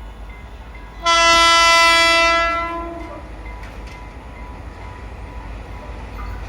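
Train horn sounding one steady blast of about a second and a half, over the low rumble of the train running.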